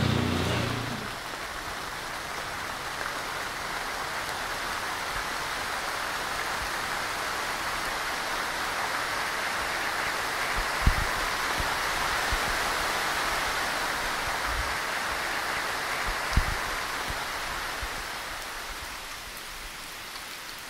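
Heavy rain pouring steadily, with two short low thumps, about eleven and sixteen seconds in.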